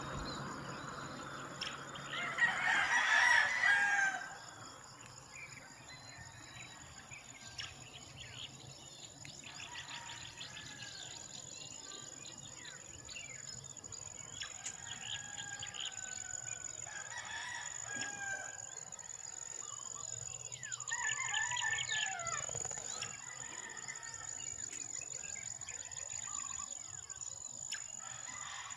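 A rooster crowing twice: a loud crow near the start and a quieter one about twenty seconds later, its end falling in pitch. Small birds chirp in between over a steady high-pitched tone.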